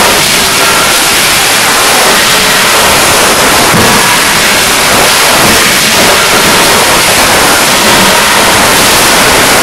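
Loud, steady machinery din of a forging shop with CNC forging hammers and presses running: a dense, even hiss with a few faint knocks about halfway through.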